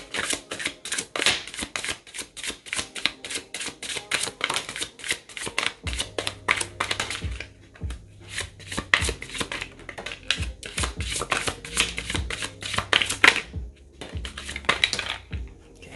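True Heart Intuitive Tarot cards being shuffled by hand and laid out on a cloth-covered table: a quick run of card slaps and riffles, several a second, broken by two short pauses. Soft background music with a low bass comes in about six seconds in.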